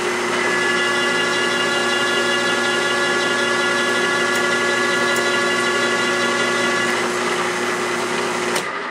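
Drill press running steadily while its twist drill bores a greased tap hole into the end of an aluminum extrusion. It is switched off near the end and winds down.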